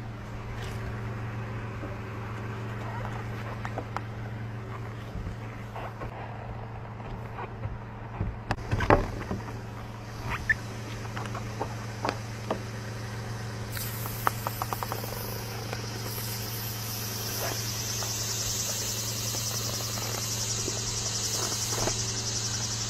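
A steady low vehicle hum, with scattered short clicks and knocks. The loudest knock comes about nine seconds in. A high, fine hiss builds from about two-thirds of the way through.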